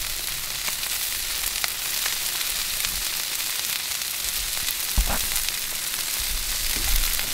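Beef burger patties and Texas toast sizzling on a hot flat-top gas griddle: a steady frying hiss full of fine crackles, with one sharper pop about five seconds in.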